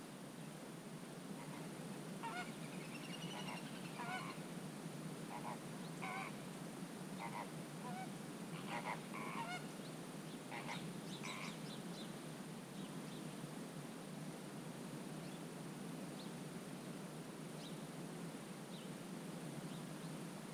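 Wetland waterbirds calling: a run of short, pitched calls, one rising and falling, from about two seconds in until about eleven seconds, then a few faint high chirps, over a steady low background hiss.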